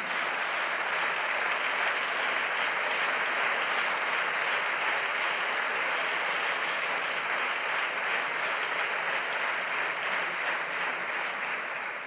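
Sustained applause from a large bench of parliamentary deputies clapping, an even, steady wash of many hands that eases off slightly near the end.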